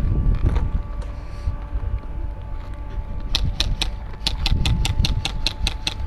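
Rapid airsoft gun fire: a quick run of about a dozen sharp cracks at four to five a second, starting about three seconds in, over a low wind rumble on the microphone.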